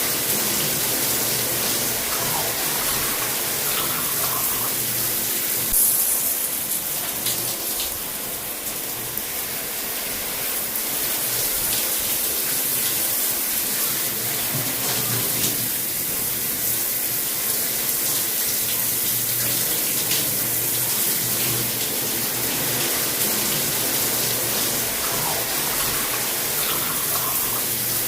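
Shower running: a steady spray of water hissing, briefly louder about six seconds in.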